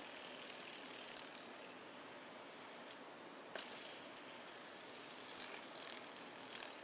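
All-metal fidget spinner whirring on its center ball bearing: a faint high whir with a steady high ringing tone. It dies away about two seconds in, then is flicked back into spin with a click about three and a half seconds in, with a few light metal clicks near the end.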